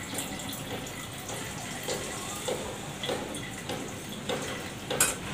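Thin chilli-powder paste poured from a small steel bowl into a pot of frying masala, trickling and dripping in small plops, with a short tap near the end.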